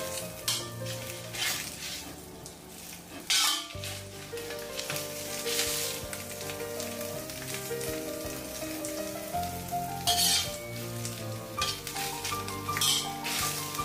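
Pork leaf lard sizzling and frying in a new pot being seasoned (opened) with the hot fat. Stirring scrapes stand out a few times, with soft background music underneath.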